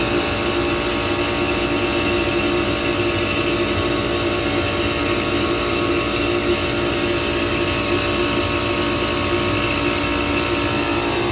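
Air-conditioning unit running with its Copeland scroll compressor: a steady mechanical hum with several held tones and a thin high whine above it.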